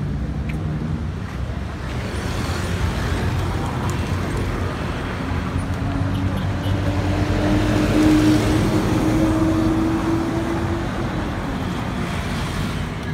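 Road traffic with a motor vehicle driving past close by. Its engine hum and tyre noise build to their loudest about eight seconds in, then fade.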